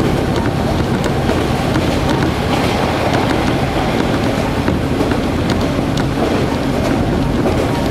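Interior running noise of a KiHa 40-series diesel railcar under way: a steady engine drone and rumble of wheels on rail, with a few faint clicks over the track.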